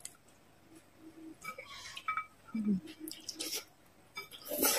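Close-miked eating sounds: wet chewing and mouth noises, with a few light clinks of chopsticks against a glass sauce bowl and a louder burst of mouth noise near the end.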